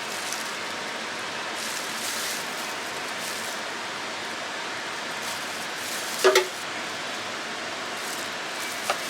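Steady hiss-like background noise, with a single short clink about six seconds in.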